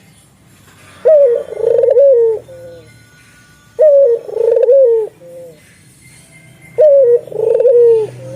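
Spotted dove (tekukur) cooing: three repeated coo phrases about three seconds apart, each about a second and a half long and ending on a falling note.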